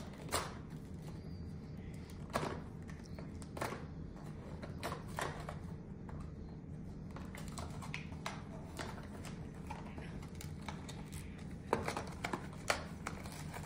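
A toy pack's packaging being torn open by hand: scattered crinkles, rips and clicks of wrapper and card, coming closer together near the end, over a steady low room hum.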